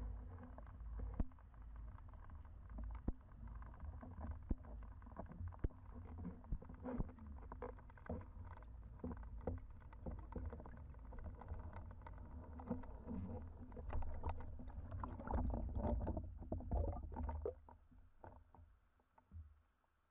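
Underwater noise picked up by a camera mounted on a speargun during a spearfisher's fast ascent: a steady low rumble of water movement and fin kicks, with many small clicks and knocks from the gun and housing. It dies away about three seconds before the end.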